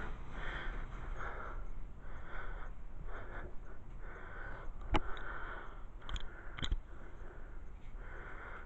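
Metal sockets being handled while looking for one that fits a motor nut: a few sharp clicks about five, six and six and a half seconds in, over soft repeated breathing.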